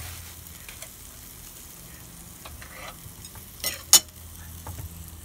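Marinated meat sizzling on a barbecue grill as fat drips from the grilling pork intestines. Two sharp clicks come a little after three and a half seconds in.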